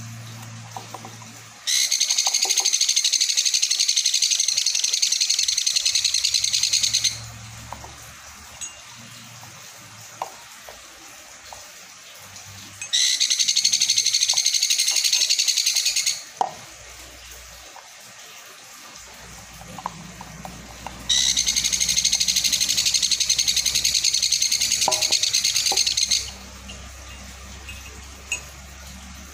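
Baby sun conure chick giving its rapid, buzzy food-begging call in three long bouts of a few seconds each, hungry while its hand-feeding formula is prepared. Small clicks of a plastic syringe against the feeding cup come between the bouts.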